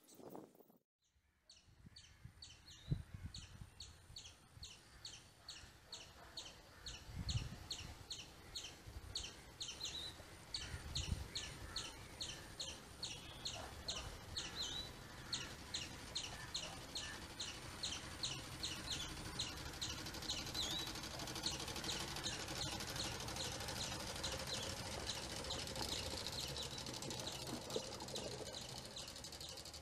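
A squirrel chirping over and over, about three sharp high chirps a second, fading out about two-thirds of the way through. Under it the whine of the approaching 350 W electric kayak motor and its 9-inch model aircraft propeller grows steadily louder toward the end.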